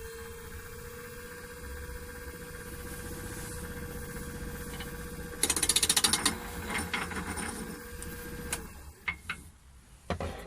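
Holzmann D460FXL wood lathe running at a set speed with a steady motor tone. About five seconds in, a loud rapid chatter starts, fitting a turning tool meeting the spinning wood, and it keeps up in shorter bursts. The motor tone stops near the end and a few knocks follow.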